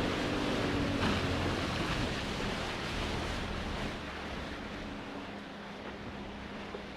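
Water slapping and washing against a boat's hull, a steady wash of noise with a faint low hum beneath it, easing off slightly about four seconds in.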